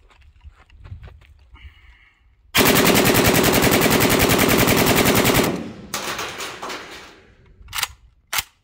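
A Polish AKMS in 7.62x39, converted to full auto, firing one continuous burst of about three seconds at a steady rapid rate. The echo trails off for about two seconds afterward. Near the end come two sharp clacks.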